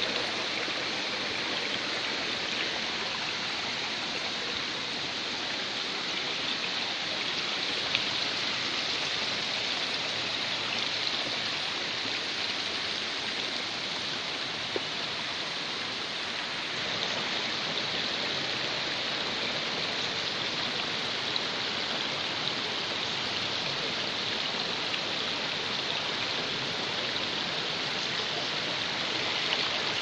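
Shallow rocky stream running over and between boulders: a steady rush of water.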